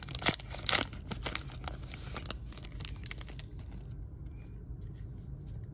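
Foil wrapper of a Topps baseball card pack crinkling and tearing as it is ripped open. The crackling is loudest over the first two seconds and dies away by about three and a half seconds in.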